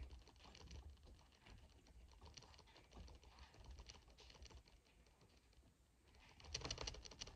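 Fingertips lightly tapping sunscreen into facial skin: a faint, quick patter of soft taps, thinning out for a moment and then coming denser and louder near the end.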